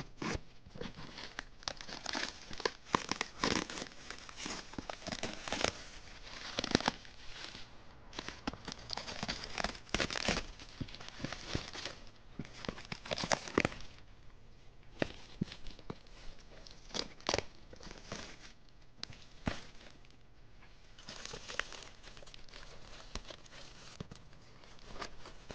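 Plastic wrapping film being cut with a knife and pulled off a large cardboard box, crinkling and tearing irregularly, with a few quieter stretches in between.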